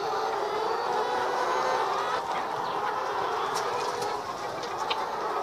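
A flock of laying hens clucking together in a steady, overlapping chorus, with a few short clicks in the second half.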